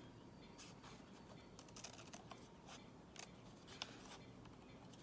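Faint, irregular snips of scissors cutting through a heavy paper template.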